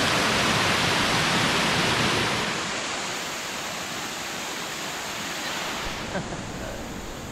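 Waterfall: water rushing and splashing down rock cascades, a steady rushing that drops noticeably quieter about two and a half seconds in.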